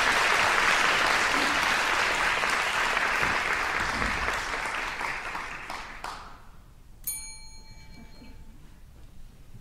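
Audience applauding, dying away about six seconds in. About a second later a small bell dings once and rings for a second or so.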